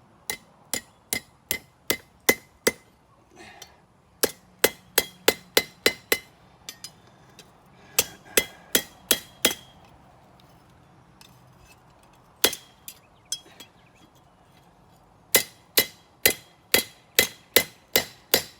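Hand hammer striking thin hot steel on an anvil, working it flat: runs of sharp ringing blows, about two to three a second, broken by short pauses, with a single blow near the middle.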